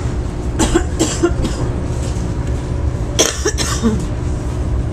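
A person coughing in two short fits, about half a second in and again after three seconds, over the steady low rumble of the moving NJ Transit train heard from inside the car.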